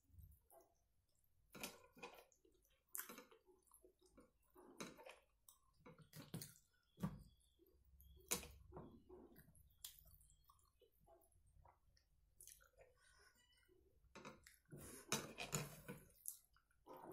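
Faint eating sounds of a person eating rice by hand: irregular chewing and wet mouth smacks, with the soft squish of fingers mixing rice and curry on a plate.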